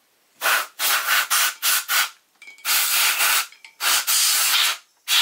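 A hand tool scraping rust and dirt off the steel cooling fins of an electric motor's rotor, in about eight rasping strokes of uneven length, two longer ones in the middle, cleaning the fins ready for paint.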